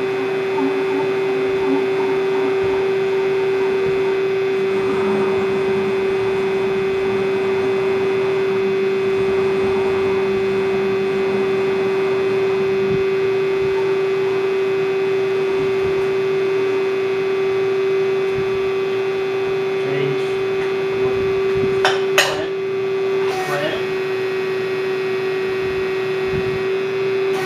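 Ganesh GT 1850 CNC lathe running with a steady hum while its tool turret traverses toward the chuck, with a few sharp clicks a little over twenty seconds in.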